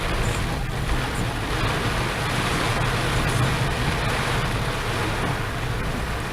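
Torrential cloudburst: heavy rain pouring down in a steady, unbroken hiss.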